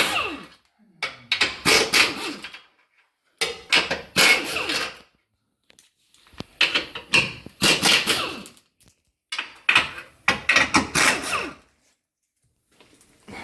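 Half-inch drive ratchet with an extension and a 13 mm socket, working bolts loose in four bursts of quick ratcheting with short pauses between them.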